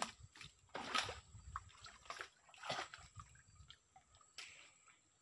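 Faint, irregular wet splashes and squelches of water and soft mud, four or five in a few seconds.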